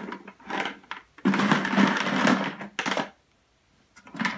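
Loose markers rattling inside a plastic bucket as it is shaken: one long rattle, a short pause, then a shorter rattle near the end.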